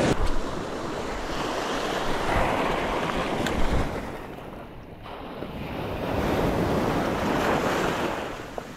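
Surf breaking and washing up over a stony cobble beach, swelling twice, with wind buffeting the microphone.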